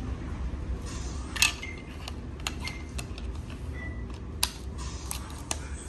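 Plastic back cover of a Huawei E5577 mobile Wi-Fi hotspot being pressed and clicked into place: a series of sharp clicks, the loudest about a second and a half in, over a steady low hum.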